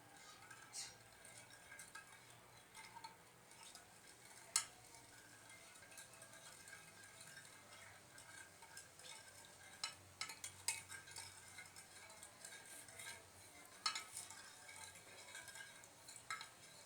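A spoon stirring a thick starch-and-water slime mixture in a cup, with faint scattered clinks and scrapes against the container; a sharper clink about four and a half seconds in, and busier clinking around ten and fourteen seconds in.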